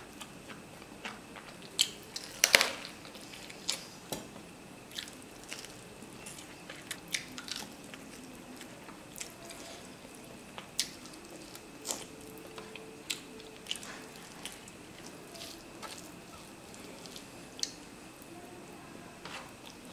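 Close-up eating sounds of mutton curry and basmati rice eaten by hand: chewing, with a long string of short wet mouth clicks and smacks, the loudest about two and a half seconds in.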